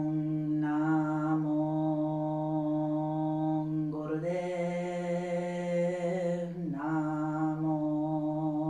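A woman's voice chanting a mantra on one steady held note. The tone opens up and brightens briefly about a second in, and again from about four to nearly seven seconds in.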